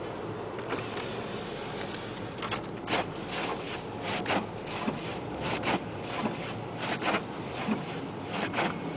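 Car windshield wipers scraping across snowy glass, a pair of rubbing scrapes about every second and a half, starting a couple of seconds in, over the steady road and engine noise of the moving car's cabin.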